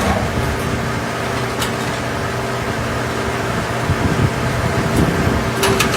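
Factory machinery running with a steady, even hum, and a few short clicks about a second and a half in and again near the end.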